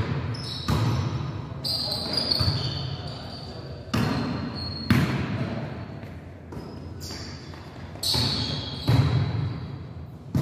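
Indoor volleyball being played: the ball is struck several times with sharp smacks, often in pairs about a second apart, ringing in the hall. Between the hits come high squeaks of sneakers on the court floor and players' shouts.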